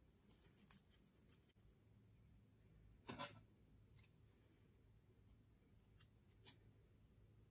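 Faint squishing and crackling of a glitter gel squishy stress ball being squeezed in a hand, with one louder squelch about three seconds in. A few soft ticks follow near the end.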